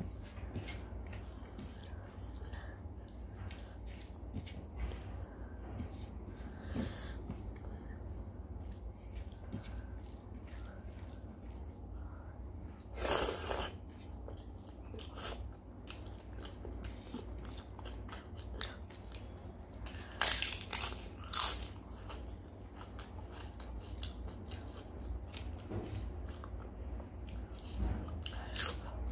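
Eating sounds of someone eating rice by hand: fingers working rice on a plate, and chewing and biting. A few louder crunchy bites come about 13 seconds in and twice around 20 to 21 seconds in.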